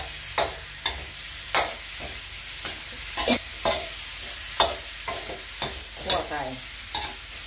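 Metal spatula knocking and scraping against a wok as raw chicken pieces are stir-fried with herbs and chillies, over a steady hiss of sizzling oil. The sharp spatula knocks come irregularly, about one every half second to second.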